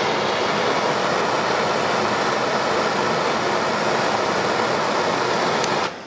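Handheld gas torch flame hissing steadily, then cutting off suddenly near the end.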